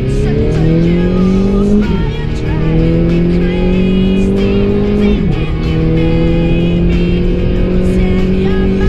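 Car engine accelerating hard through the gears: its pitch climbs steadily, drops sharply at an upshift about two seconds in and again about five seconds in, then climbs again.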